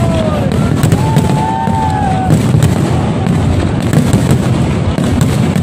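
Aerial fireworks display: a dense, continuous barrage of shells booming and crackling as they burst, with a couple of long whistling tones in the first half.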